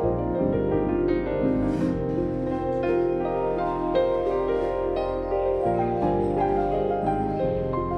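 Background music: a gentle piano-led instrumental with chiming mallet-like notes.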